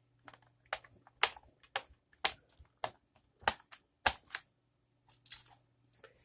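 A screwdriver driving a small screw into a plastic keyboard case: a string of sharp, irregular clicks about every half second as the driver turns and reseats in the screw head, then a short scraping rustle near the end.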